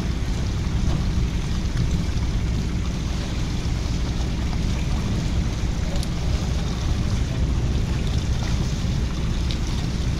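Fishing boat's engine running steadily, a constant low drone, with a few faint knocks on deck.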